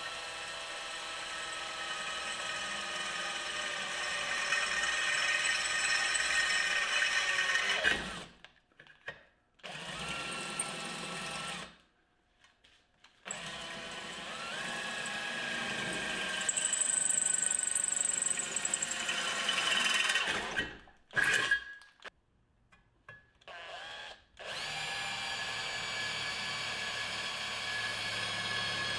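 Makita DF458D cordless drill driving a twist bit through a square steel tube: the motor whine falls slowly in pitch as the bit works under load. It stops and restarts several times, with a few short trigger blips in between.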